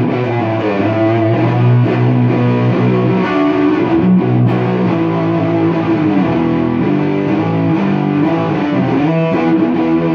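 Takamine GX-100 electric guitar with DiMarzio pickups played through a small lunchbox-style tube amp head with the gain up, giving an overdriven tone. Held, sustaining notes with a few string bends.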